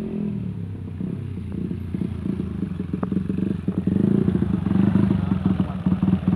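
A small motorcycle engine running as the bike is ridden closer. It grows louder as it nears and passes close by, from about two-thirds of the way in.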